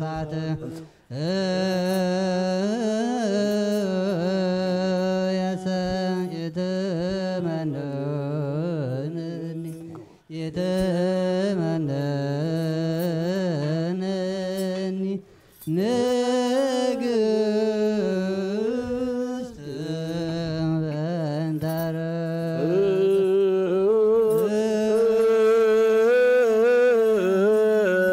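Ethiopian Orthodox wereb: a group of men chanting a Ge'ez hymn to Mary in unison, slow ornamented phrases over a held low note. The singing breaks off briefly for breath about a second in and again near ten and fifteen seconds, and grows louder near the end.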